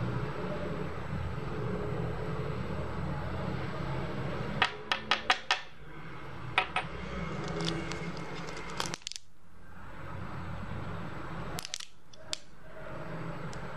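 Small hard clicks and clinks of a glass tank tube and a stainless-steel atomizer being handled in their box, over a steady low hum. A quick run of four clicks comes about halfway in, with a few more over the following seconds. Near the end come light crinkles and clicks from a small plastic bag of spare O-rings being handled.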